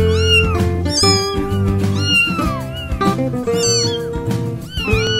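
Cat meows repeated about once a second, each one rising and falling in pitch, over background music with a steady bass line.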